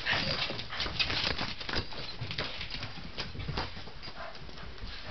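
Small dogs' claws clicking and pattering irregularly on a tile floor as they move about.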